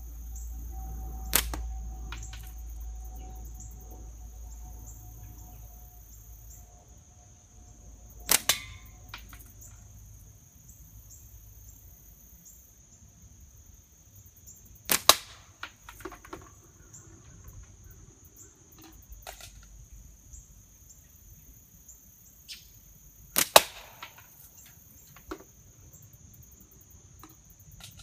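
An HDPE slingshot shooting 3/8-inch steel balls: four sharp cracks of the bands releasing, several seconds apart. The first crack is single; each of the other three is followed within a fraction of a second by a second crack, the ball striking the can. Softer clicks come between shots as the next ball is loaded, over a steady high drone of insects.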